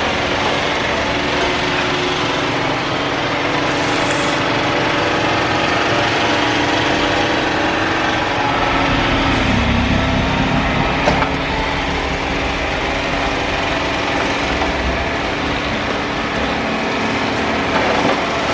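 Compact tractor engine running steadily while it drives a snowblower attachment that is throwing snow. About halfway through, the engine pitch dips briefly and then recovers as the blower takes on snow.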